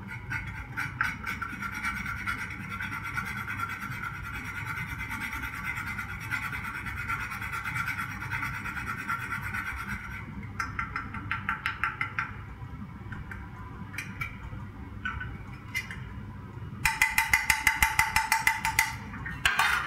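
Wire whisk stirring thick béchamel in a stainless steel saucepan, its wires scraping rapidly against the pot. The strokes pause about ten seconds in, come back in short spells, and end in a louder spell of fast strokes, about six a second, near the end.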